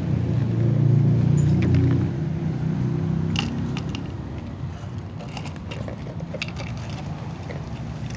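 Dry cat kibble dropped from a hand, clattering in scattered clicks onto an upturned plastic container and a tile floor, with cats starting to eat it. A low rumble is loudest in the first two seconds and then fades.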